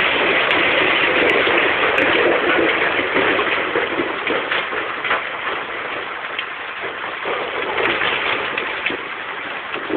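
Stone-grinding plant machinery running, with a continuous dense rattle of crushed stone pouring through it.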